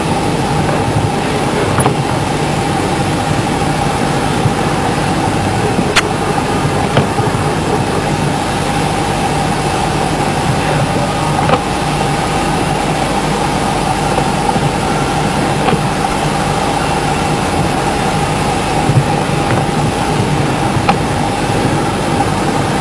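Steady, loud background noise with a constant hum and a steady high tone, broken by a few sharp clicks.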